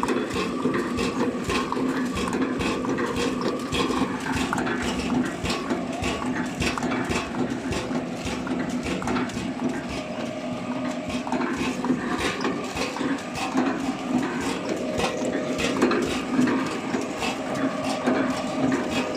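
Horizontal flow-pack packaging machine running: a steady mechanical hum with rapid, continuous clicking.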